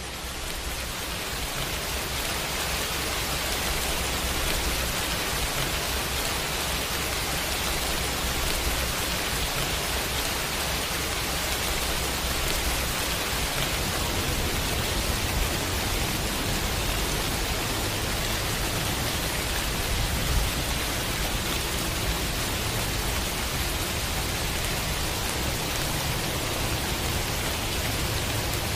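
Steady pouring rain: a dense, even hiss that swells up over the first few seconds and then holds level.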